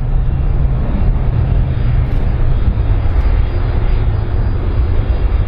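Airbus A310-304 airliner's jet engines running loud and steady as it rolls along the runway, with a deep rumble underneath.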